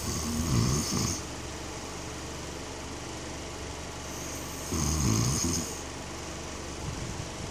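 A man snoring in his sleep: two loud snores about four to five seconds apart, each lasting about a second, one at the start and one about five seconds in.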